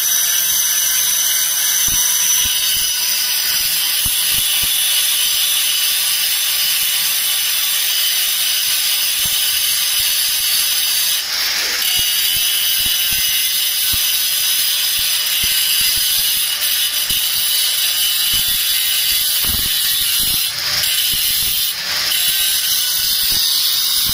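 Machine running with a steady, rapid mechanical clatter and whine, with a few brief knocks partway through.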